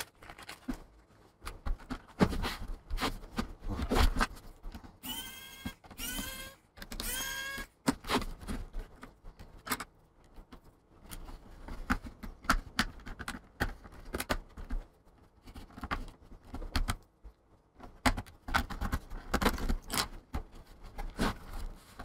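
A laptop being handled on a desk: an irregular run of plastic clicks, taps and knocks, with three short rising squeaks about five to seven seconds in.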